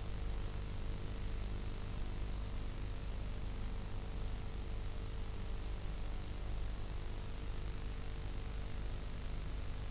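Steady hiss with a low hum and a few faint steady tones, and nothing else: the background noise of an old analogue TV recording.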